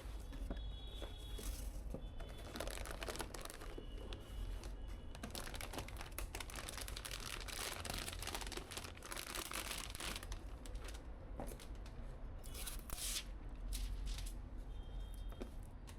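Hands crinkling and tearing packaging material in irregular rustling bursts, busiest through the middle with another short burst near the end, over a faint low hum.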